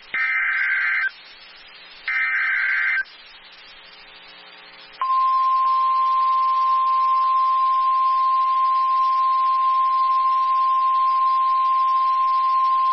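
Two buzzy Emergency Alert System SAME data bursts, about a second each and a second apart, the end of the coded alert header. About five seconds in, the NOAA Weather Radio warning alarm tone starts: one steady, single-pitch 1050 Hz tone that holds and signals a new warning broadcast.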